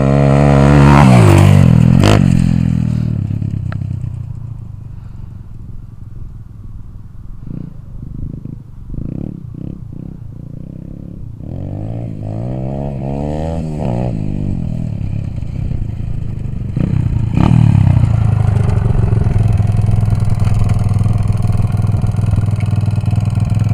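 Xsport 125 pit bike's single-cylinder four-stroke engine. It passes close by at high revs about a second in and fades as the bike rides off, then revs rise in pitch several times as it rides across the field. In the last third it idles steadily close by.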